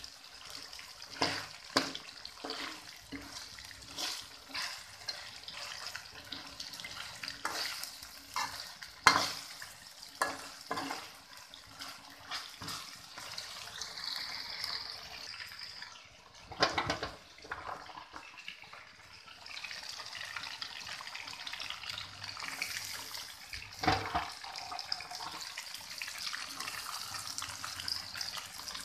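Chicken pieces sizzling in sauce in a metal wok, with a metal spatula scraping and knocking against the pan at irregular intervals.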